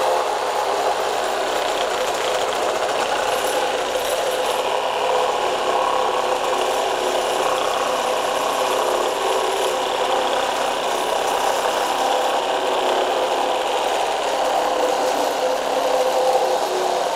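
Metabo HPT CR18DAQ4 18-volt cordless one-handed reciprocating saw with its short half-inch stroke running steadily for about seventeen seconds, sawing through a wooden 2x4. It starts abruptly and stops just before the end. The saw vibrates heavily at first, while its shoe is not yet braced against the wood.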